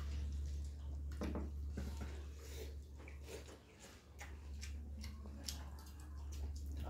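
Eating by hand from steel plates: close chewing and smacking mouth sounds, with fingers squishing and scooping rice against the plate, as scattered short clicks over a steady low hum.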